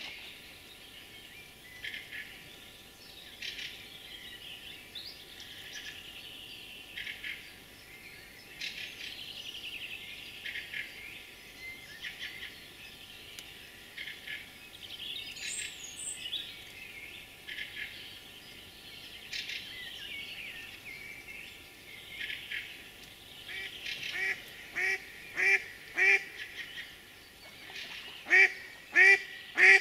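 Small birds singing throughout with scattered high chirps and trills. About six seconds before the end a hen duck, the hunter's decoy, starts a rapid series of quacks, about one and a half a second, growing louder.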